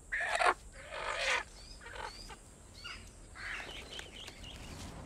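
A chicken held in someone's hands squawks loudly twice in quick succession, then gives several fainter squawks. Small birds chirp in the background.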